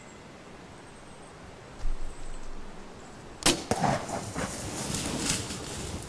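An arrow shot at a black bear at close range: a low thump about two seconds in, then a sharp crack of the shot and hit about a second and a half later, followed by the bear crashing away through brush and leaves.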